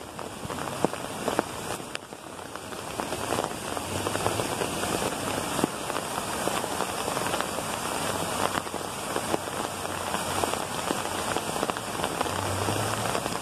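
Heavy rain and hail falling, a dense steady hiss with many scattered sharp ticks of hailstones striking.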